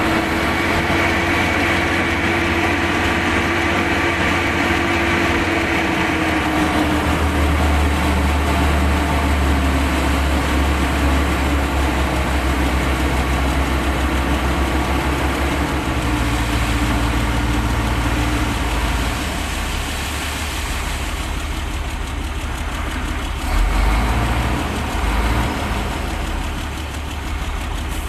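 Shacman dump truck's diesel engine running steadily as its hydraulic hoist raises the tipper bed to dump a load of river sand.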